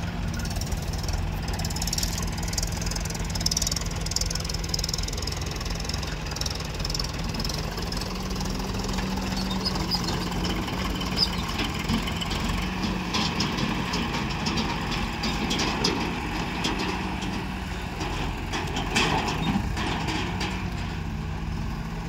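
Diesel engine of an Escorts Digmax backhoe loader running under load while its backhoe arm digs soil, the engine note rising for a few seconds about eight seconds in. Scattered clatter of earth and stones, busiest near the end.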